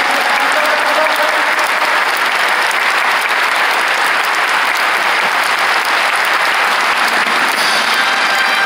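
Steady applause from a packed football stadium crowd, clapping without cheering or chanting.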